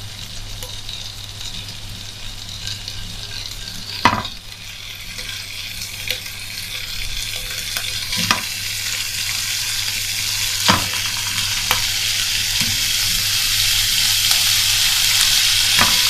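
Whole Egyptian country sausages sizzling in a lightly oiled hot pan, seared to make them release their fat; the sizzle grows steadily louder, with a few sharp clicks along the way.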